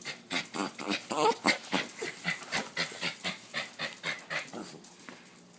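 A dog making rapid rhythmic noises with its breath or mouth, about four a second, easing off near the end.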